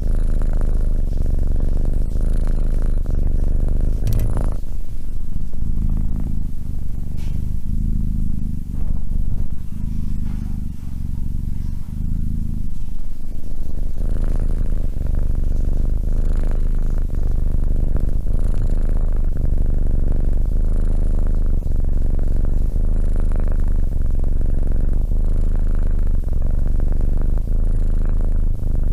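Tabby kitten purring steadily right at a microphone. The purr thins and softens for several seconds in the middle. There is one sharp click about four seconds in.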